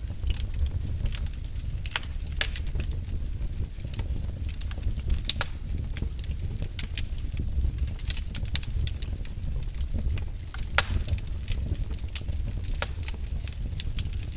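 Wood fire burning in a fireplace, crackling with irregular sharp pops over a low steady rumble.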